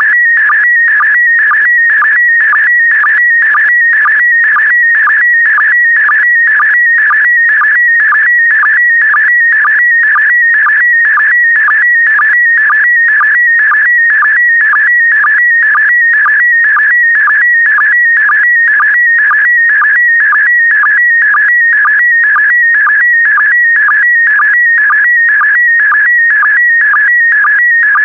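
Slow-scan television signal in PD120 mode: a continuous warbling electronic tone around 2 kHz, cut by a short sync pulse about twice a second, each pulse marking a new pair of picture lines as a photo is sent scanline by scanline.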